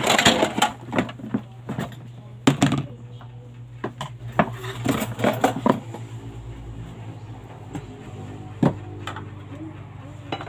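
Metal cookware and utensils clinking and knocking during cooking, in quick irregular bursts for the first six seconds, then only now and then, over a steady low hum.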